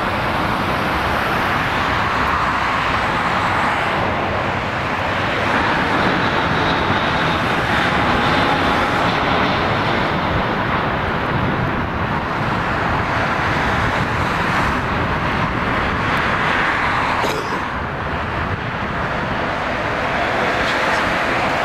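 Airbus A319 airliner's jet engines on final approach to landing: a steady rushing noise with a faint high whine.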